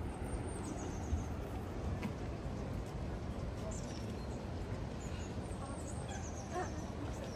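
Steady low outdoor city hum, with faint short high bird chirps now and then.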